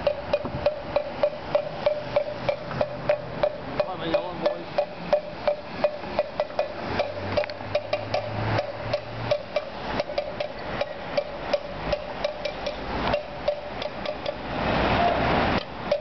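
A hand-struck percussion noisemaker beaten in a steady rapid rhythm, about three sharp strikes a second, each ringing on the same note. Traffic hum rises and fades twice behind it.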